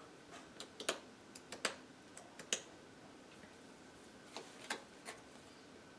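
Scattered sharp clicks and light taps of playing cards being handled, shuffled in the hand and set down on a playmat over a wooden table, the loudest about two and a half seconds in.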